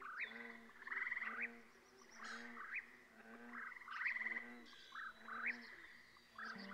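Frogs calling in a chorus of quick, repeated croaks, about two a second. A soft held music chord comes in right at the end.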